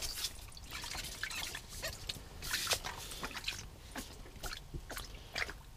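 Scattered small taps, clicks and drips at an ice-fishing hole: a freshly landed sunfish flopping wetly on the ice as it is handled.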